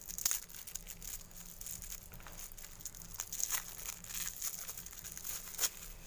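Crinkly wrapping rustling and crackling in the hands while a piece of tamarind pulp is taken out and handled. The crackles are irregular, with the loudest about a third of a second in.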